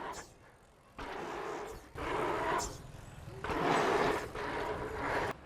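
Rushing noise of dirt-jump bike riding, tyres rolling on dirt with wind on the microphone, in several short stretches that start and stop abruptly.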